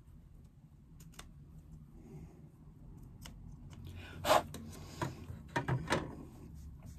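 Scissors snipping stray threads from the cut edge of layered fabric, a few faint snips, then louder rustles and knocks in the second half as the fabric is handled and the scissors are put down on the table.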